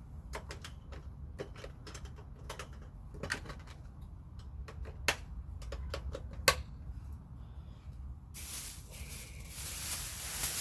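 Handling noise from a plastic bag of vacuumed dirt: scattered clicks and crinkles over a low rumble. A louder, steady hiss starts about eight seconds in.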